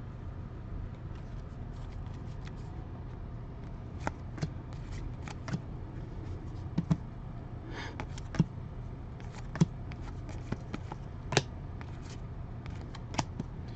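2020 Panini Legacy football trading cards being flipped through by hand, one after another: a string of short, irregular clicks over a steady low hum.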